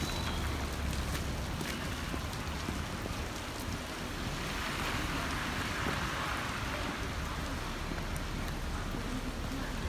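Steady rain falling on wet paving, a continuous hiss that swells for a couple of seconds around the middle.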